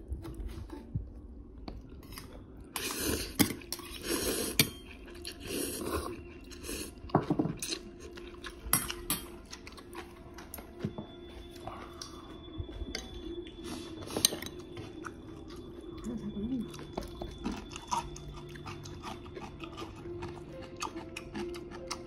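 Close-up chewing and eating noises as ramen noodles and kimchi are eaten, with chopsticks clicking against a stainless steel bowl. There are louder noisy bursts in the first seven seconds, then quieter chewing with scattered clicks.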